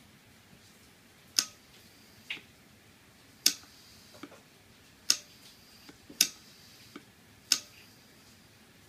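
Sharp clicks, about seven at uneven intervals, each with a brief high ringing, from an Aldrich Kugelrohr's rotating glass tube and bulbs turning in their drive.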